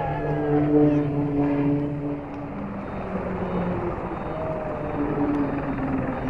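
Aerobatic display aircraft flying overhead: a loud engine drone with a steady roar. The pitch drops as the aircraft pass, about two seconds in and again near the end.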